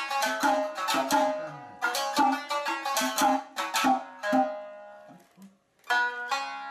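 Nagauta shamisen music: plucked notes with sharp attacks, several a second, with a short silent pause about five seconds in before the playing resumes.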